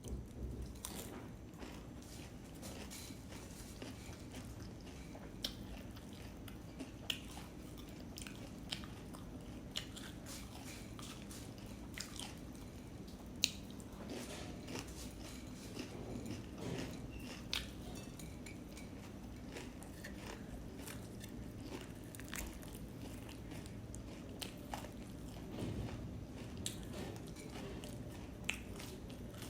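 A person chewing a mouthful of puffed rice (muri) and jackfruit, with soft munching and scattered sharp crunches every second or two, over a faint steady low hum.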